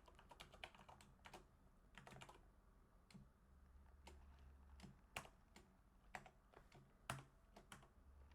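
Faint computer keyboard typing: irregular keystrokes in short runs with brief pauses between them, over a low electrical hum.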